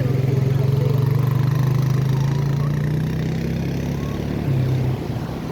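A motor engine running, with a steady low hum that rises a little in pitch and then fades out near the end.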